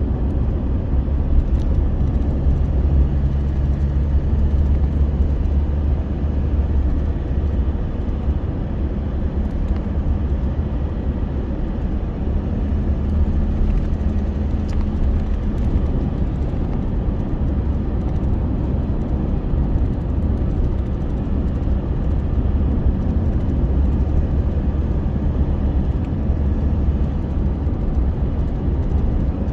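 Steady low rumble of a running vehicle, with a faint hum that shifts slightly in pitch a couple of times.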